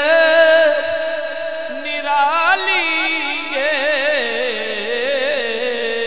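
A man singing a Punjabi devotional kalam in a drawn-out, melismatic style: a long held note, a climb in pitch about two seconds in, then quick wavering ornaments that fall away near the end.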